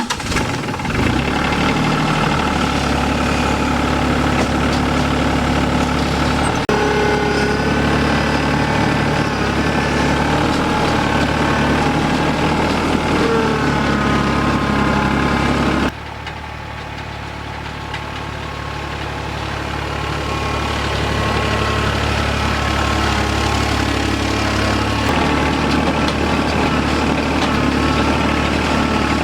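Tractor engine running steadily under load while carrying a water tank on its forks. About halfway through the sound drops suddenly, then grows steadily louder again.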